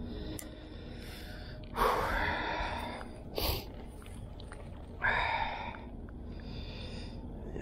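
A person breathing close to the microphone: three loud breaths, about two, three and a half and five seconds in, over a steady low rumble.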